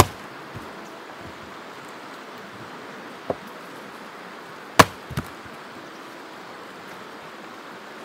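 Axe chopping wood: four sharp strikes at uneven spacing. One comes at the start, one a little past three seconds, and the loudest near five seconds, followed quickly by a lighter one, over a steady rushing noise.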